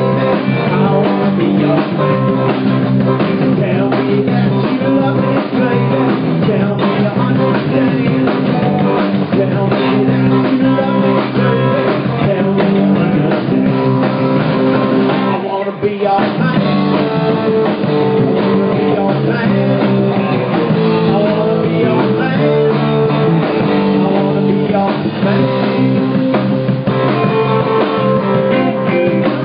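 Live rock and roll band playing: electric guitars, electric bass and a drum kit, loud and steady, with a brief dip about halfway through.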